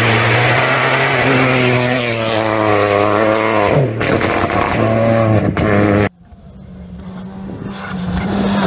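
Rally car engines at full throttle. One car accelerates through a bend, its revs climbing, dropping sharply about four seconds in, then climbing again. After an abrupt cut, a second rally car approaches, its engine growing steadily louder.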